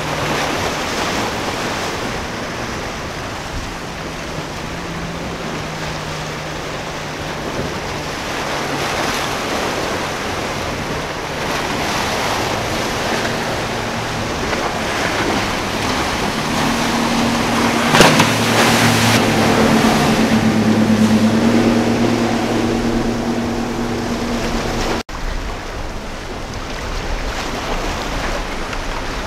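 Wind and surf noise on the microphone, with a motorboat engine droning steadily and growing louder as the boat runs close through the chop. There is a sharp splash or slam about 18 seconds in. Near 25 seconds the engine drone cuts off abruptly, leaving the wind and waves.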